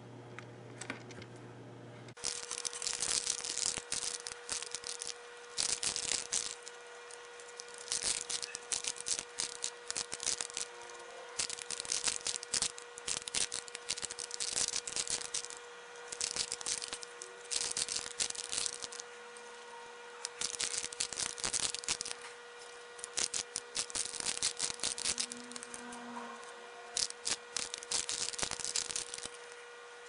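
Plastic Rubik's Cube layers being turned, sped up: dense clicking and rattling in bursts of one to two seconds, with short pauses between runs of turns.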